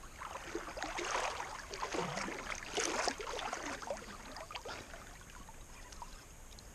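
Water splashing and washing in irregular surges, strongest in the first few seconds and dying down after about five seconds.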